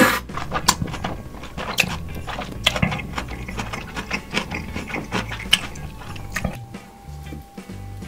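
A run of irregular sharp clicks and clacks of hard objects being handled, over a low steady hum.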